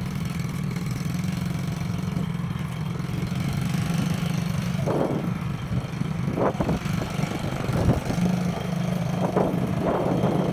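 A small engine idling steadily, with a few short gusts of wind noise on the microphone in the second half.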